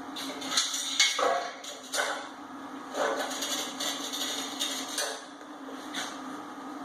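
Steel round-stock pieces knocked and clanked against metal as they are set in place: a handful of irregular taps and clinks, the loudest about a second in, over a steady low hum.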